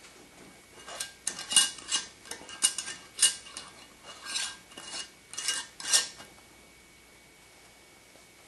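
Metal kitchenware clinking and clattering: a dozen or so sharp clinks with brief ringing over about five seconds, then it stops about six seconds in.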